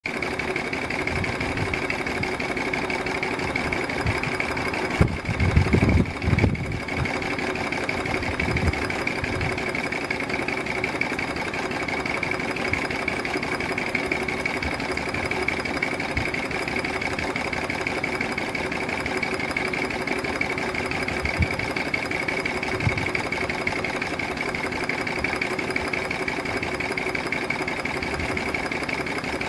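3½-inch gauge live-steam Rob Roy model tank locomotive running on blocks with its wheels spinning free: a fast, steady beat from the small engine and its motion, with a steady high tone running through it. A few louder low thumps come about five to seven seconds in.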